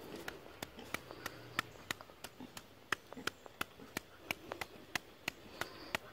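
Pig chewing, a steady run of sharp crunching clicks about three times a second.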